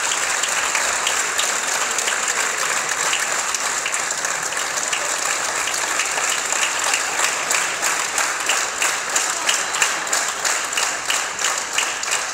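Audience and performers applauding, a dense clatter of clapping that in the second half falls into rhythmic clapping in unison, about two claps a second.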